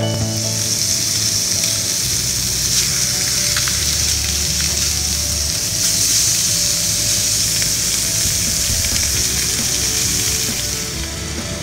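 Rockfish fillets sizzling as they pan-fry in oil: a steady hiss with an occasional faint pop, dipping briefly near the end.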